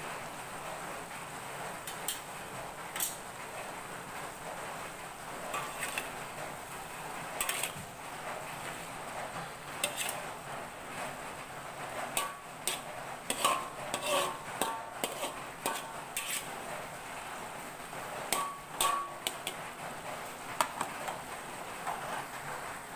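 Metal spatula scraping and clinking against an aluminium wok while stir-frying vegetables. The irregular strokes come over a steady hiss and are busiest in the middle stretch.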